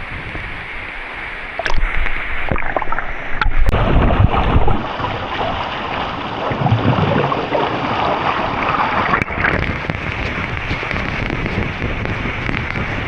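Waterfall rushing and splashing into its pool, a steady loud wash of water that surges louder for a couple of seconds early on.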